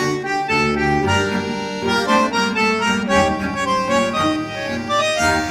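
Background instrumental music with an accordion-like melody over a bass line.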